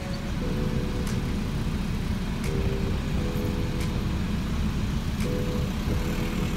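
Steady low rumble of a car's engine and tyres heard from inside the cabin while driving slowly through town streets. Quieter music with sustained chords plays along with it.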